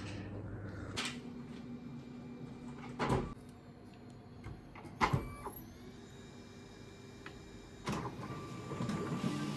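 Flatbed office photocopier being used: a few clunks, the loudest about halfway through as the lid is shut, a short rising whine as the machine starts, and another clunk near the end before a steady running hum as it copies.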